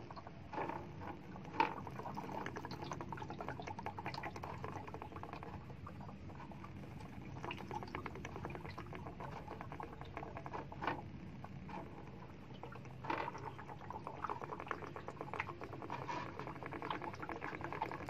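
Water draining quickly out of an electric water heater's tank: a steady pouring rush. Air let in through a loosened fitting makes it flow fast. A few light clicks and knocks come through it.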